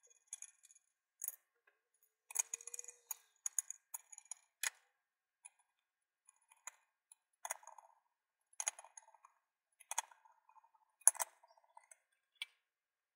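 Irregular sharp metal clicks and clinks, a dozen or so: bolts being fitted to clamp an alloy wheel onto a mounting stand, and steel tire irons being handled near the end.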